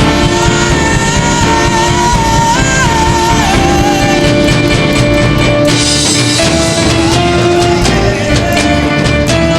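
Full-band worship music with electric guitar and drums, and a held, wavering sung or lead melody line.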